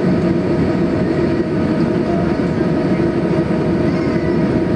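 Steady cabin noise inside a Boeing 737-800 on the ground: an even rumble with a constant low hum running through it.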